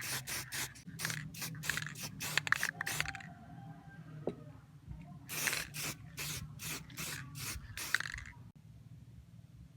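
Aerosol spray-paint can sprayed in quick short bursts, about three or four hisses a second. There are two runs of bursts with a pause of about two seconds between them.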